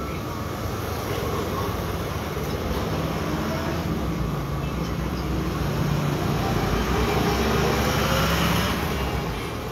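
Street traffic: a motor vehicle's engine passing close by, growing louder to a peak near the end and then fading.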